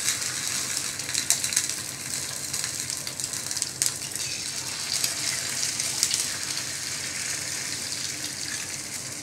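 Eggs sizzling in hot oil on a tawa griddle: a steady frying hiss with scattered sharp crackles.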